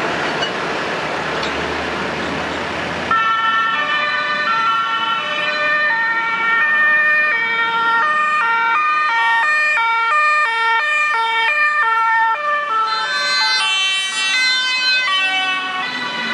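Dutch fire engines' two-tone sirens, several sounding at once at different pitches, each switching back and forth between a high and a low note. For the first three seconds there is only a steady rushing noise, then the sirens cut in abruptly.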